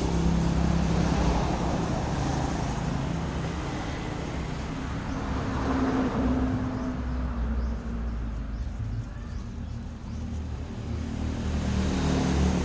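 Road traffic: engines of passing vehicles, a low hum that swells and fades three times.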